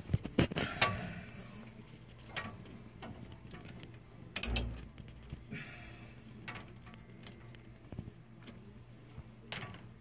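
Handling noise at an open furnace cabinet: scattered clicks and rustles, with a single knock about four and a half seconds in, over a faint steady low hum.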